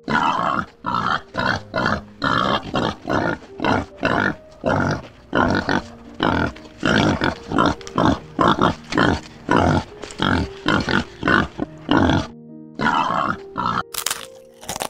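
Common warthogs grunting in a rapid, even series, about three grunts a second, with a pause near the end. A children's music bed holds steady notes underneath, and sharp crunching clicks come in at the very end.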